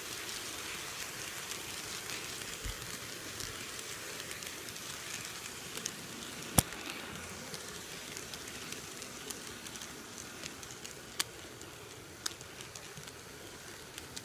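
HO-scale model train running on its track, heard close up from a camera riding along: a steady rattling hiss with a few sharp clicks, the loudest about six and a half seconds in.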